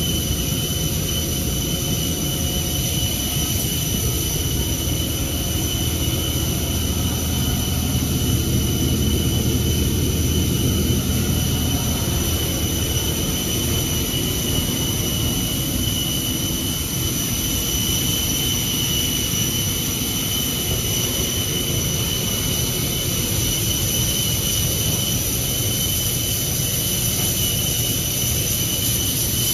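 Steady high-pitched whine of an aircraft turbine running on the apron, two thin high tones over a hiss and a low rumble that eases about halfway through.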